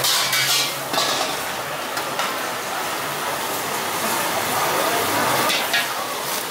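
Food sizzling and frying in woks over gas burners, with metal utensils stirring and clinking against the pans.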